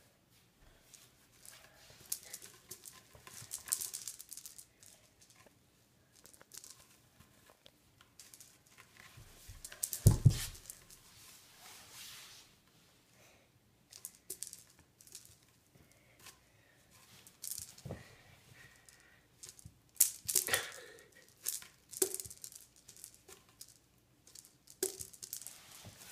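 Kitten's claws scratching and scrabbling at a sisal-rope scratching post and its carpeted base, in irregular scratchy bursts, with one heavy thump about ten seconds in.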